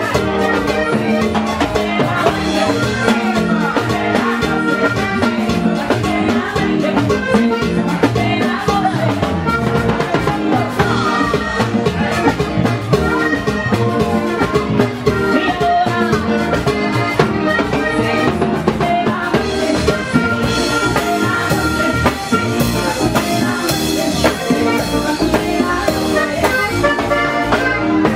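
A live Panamanian típico band plays at full volume: a button accordion carries the melody over a drum kit and a hand drum keeping a steady dance beat.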